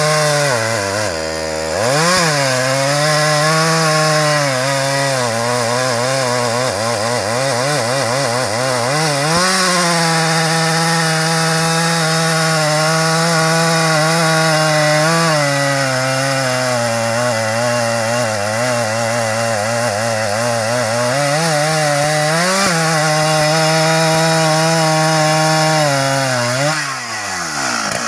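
Husqvarna 394XP two-stroke chainsaw cutting through a thick klumpit log, the engine held under load with its pitch sagging and recovering as the bar bites. Its revs dip briefly just after the start, and near the end it drops away as the cut finishes.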